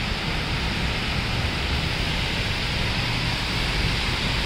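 Steady rain falling, an even hiss with a low rumble beneath it.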